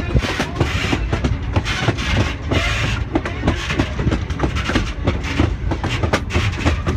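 Railroad passenger car rolling along the track, heard from the rear of a moving train: a steady low rumble with a continuous run of irregular clicks and knocks from the wheels passing over the rail.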